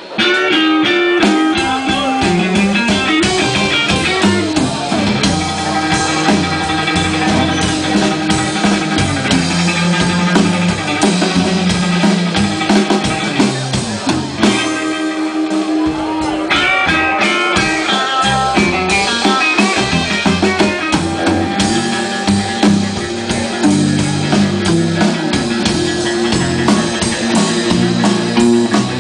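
Live blues-rock band playing: electric guitars over a drum kit, the band coming in loud right at the start.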